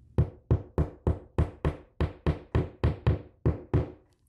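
Steel claw hammer lightly tapping a plastic wall anchor into a drilled hole in a drywall ceiling. About thirteen quick, even taps, roughly three or four a second, stopping shortly before the end.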